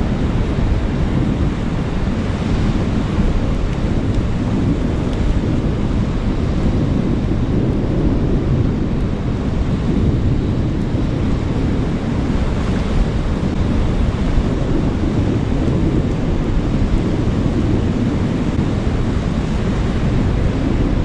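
Steady wind rumble on the microphone over surf washing onto a rocky reef, a constant low noise with no separate events.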